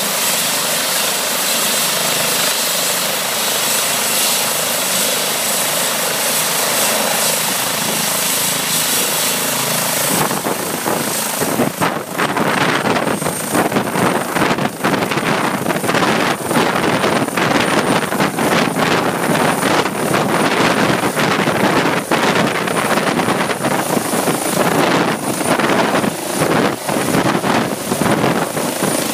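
Eurocopter EC135 police helicopter running on the ground with its rotor turning, a steady high turbine whine over the rotor noise. About ten seconds in the sound grows louder and choppier as the rotor is brought up for lift-off, and the helicopter takes off and climbs overhead.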